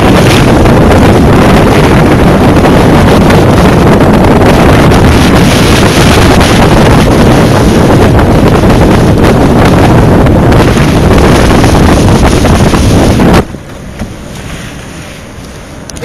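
Strong wind buffeting the microphone aboard a sailing yacht: a loud, steady rush of wind noise. It drops off suddenly about three-quarters of the way through, leaving a much quieter background.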